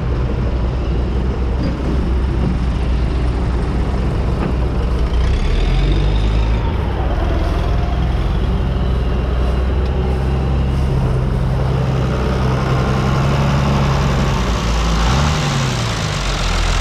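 John Deere 3350 tractor's diesel engine running steadily close by. Its note shifts about five seconds in and briefly rises and falls near the end.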